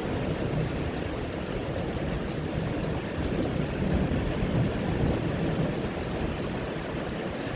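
Thunderstorm: steady rain falling, with a low rumble underneath and scattered sharp drop ticks.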